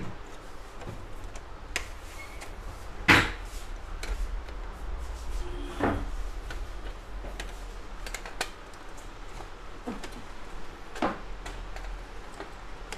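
Scattered clicks and knocks of a laser printer's plastic casing and sheet-metal parts being handled and prised apart by hand during disassembly; the loudest knock comes about three seconds in, with others near six and eleven seconds.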